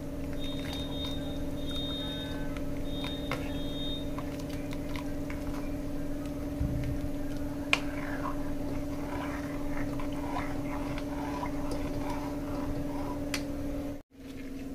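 A steady low hum, with a few light clicks and faint scraping from a steel ladle stirring thin kadhi batter in a metal kadai.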